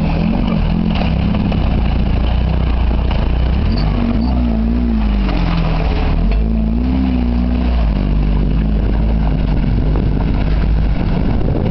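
Off-road 4x4's engine running under load and revving up and down as it crawls through deep muddy ruts, its pitch rising and falling several times over a steady low rumble.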